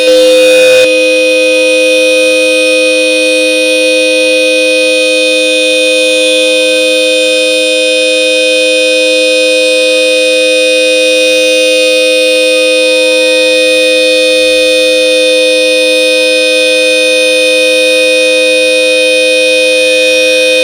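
Hella Supertone dual-tone car horn held down in one continuous blast, two steady notes sounding together. It is briefly louder and harsher in the first second.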